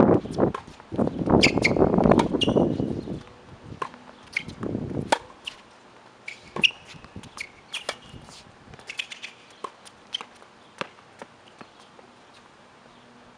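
Tennis ball strikes and bounces on a hard court, sounding as scattered sharp taps through a rally. Wind buffets the microphone in the first few seconds, and birds chirp now and then.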